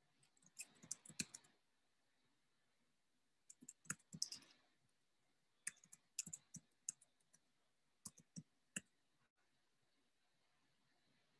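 Faint clicking at a computer, keys or mouse buttons pressed in four short bunches of several clicks each.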